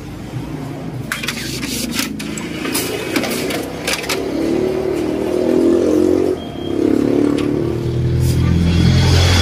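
Canon photocopier making a test copy: the document feeder clicks and clacks as it draws the original through, then the copier's motors whir and hum, the hum growing louder near the end as the copy is fed out.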